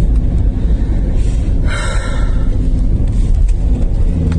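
Car running, heard from inside the cabin as a steady low engine and road rumble. A short breathy huff about two seconds in.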